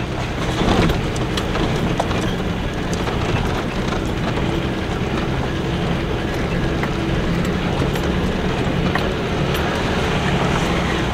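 Four-wheel-drive truck's engine running steadily as it drives a rough dirt track, heard from inside the cab, with scattered knocks and rattles over the bumps.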